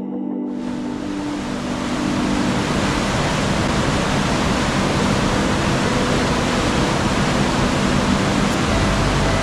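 The swollen River Dee rushing over rocky rapids: a loud, steady rush of white water that comes in about half a second in. Soft ambient music tones fade out under it in the first two seconds, and a low hum comes in near the end.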